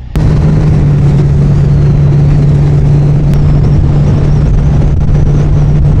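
Motorboat engine running steadily at speed, a constant low hum under loud rushing wind and water noise.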